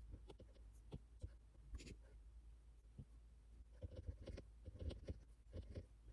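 Pen writing on paper: faint, irregular scratches and light taps, busier about four seconds in, over a steady low hum.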